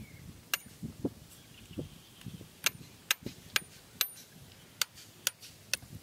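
Sharp knocks of a hand tool striking bamboo: about eight crisp strikes, one early and the rest at roughly two a second in the second half, with softer dull thuds in between.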